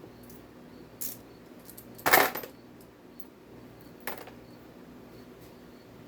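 Small metal engine parts clinking as they are handled and set down on a hard surface: three short clinks, the loudest about two seconds in.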